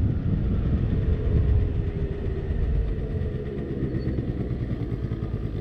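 50cc scooter engine running under a heavy low rumble of wind and road noise on the helmet-level microphone, slowly getting quieter.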